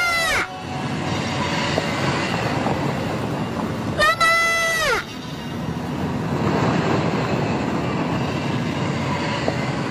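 A car driving past with a steady engine and road rumble. About four seconds in there is a child's long, high shout that drops in pitch as it ends.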